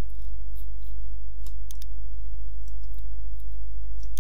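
Computer mouse scroll wheel clicking in small irregular runs as the view zooms in and out, over a steady low hum.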